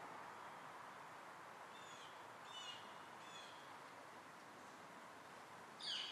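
Quiet outdoor park background with birds calling: a few short high chirps about two seconds in, then a louder call that sweeps down in pitch near the end.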